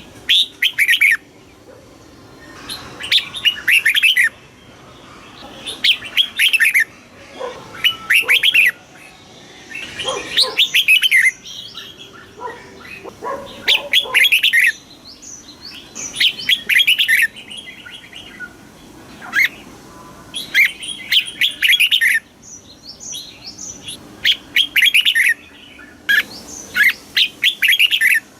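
Red-whiskered bulbul singing: short, bubbly, warbling phrases of about a second each, repeated roughly every two seconds.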